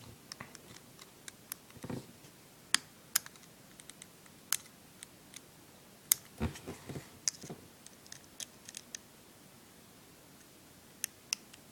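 Irregular small clicks and taps of a screwdriver and small parts being handled while an iPod is worked on, with a couple of duller knocks among them.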